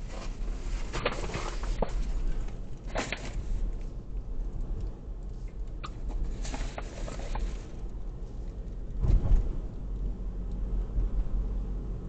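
Car driving, heard from inside the cabin: steady low road and engine rumble with a few light knocks and rattles, and a louder thud about nine seconds in, as over a bump.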